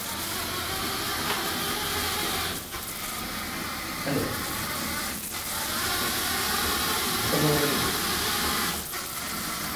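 Steady hissing rumble of a small homemade robot driving on geared DC motors, its wheels rolling across a tiled floor.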